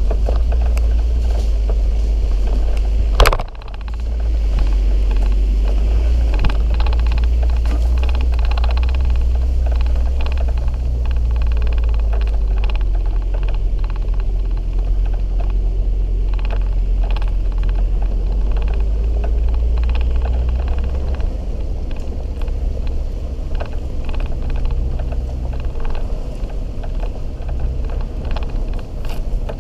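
Off-road SUV driving over a rough dirt track, heard from a camera mounted beside a front tyre: a steady low rumble of engine, tyres and suspension. There is one sharp knock about three seconds in, and the rumble eases a little about two-thirds of the way through.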